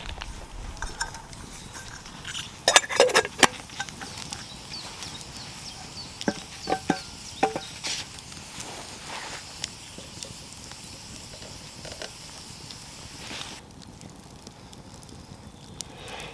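Metal cooking gear clinking and knocking at a campfire, with a cluster of sharp clicks about three seconds in and a few short ringing clinks around seven seconds in, over a faint steady hiss.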